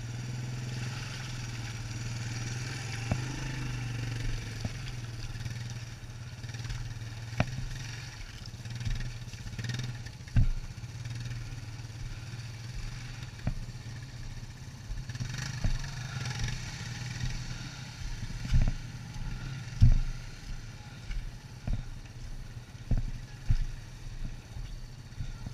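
ATV engine running at a steady low drone while riding over a rough, muddy trail. From a few seconds in there are repeated sharp knocks and rattles from the machine jolting over bumps, coming more often near the end.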